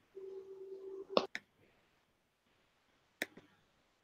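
Sharp computer mouse clicks, two close together about a second in and another near the end, over a faint steady low hum that stops just as the first clicks come.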